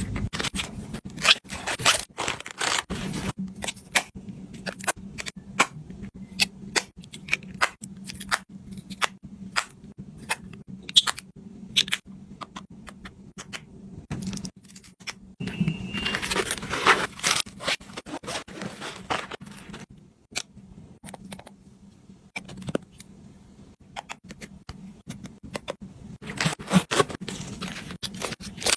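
Objects being handled and packed: a run of small clicks, taps and scrapes, with a rustling, tearing-like stretch about sixteen seconds in.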